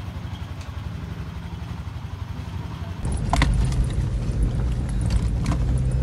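Car driving on an off-road track, its engine running with a steady low hum. About halfway through it gets louder, with several sharp knocks and rattles.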